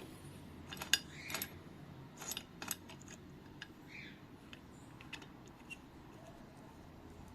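Light metallic clicks and clinks, about a dozen spread unevenly and most in the first three seconds, as the chainsaw chain and the metal parts of the chain sharpener are handled while its grinding motor is stopped.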